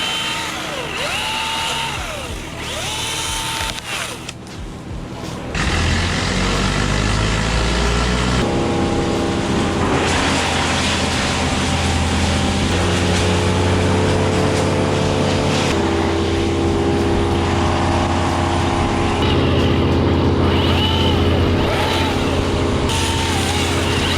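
Milwaukee battery-powered electric chainsaw, revved in short blips that whine up and fall away about once a second. About five seconds in it settles into a longer, louder steady run whose pitch shifts in steps as it cuts into a maple limb. Short revs return near the end.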